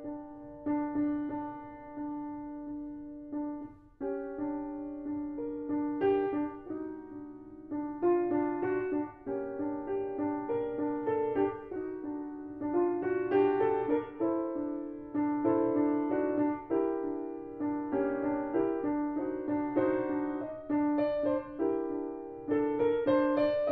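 Solo grand piano played at a lively pace: quick notes and chords moving above a steadily repeated middle note.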